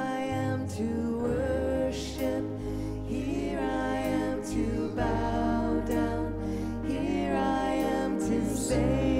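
Worship song: a sung melody with held, wavering notes over sustained low bass notes and chords that shift every second or two.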